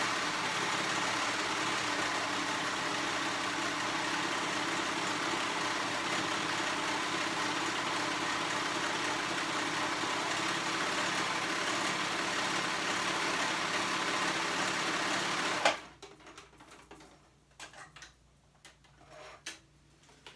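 Cover stitch machine running steadily at speed, top-stitching the edge of a hood, then stopping suddenly about three-quarters of the way through. A few light clicks and handling noises follow.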